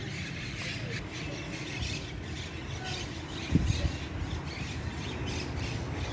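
Outdoor ambience: a steady low rumble with faint bird chirps, and a short thump a little past halfway.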